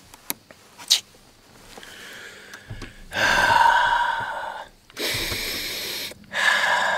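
A man taking deep, loud breaths close to the microphone: three long breaths starting about three seconds in, about five seconds in and near the end, after a couple of faint clicks in the first second.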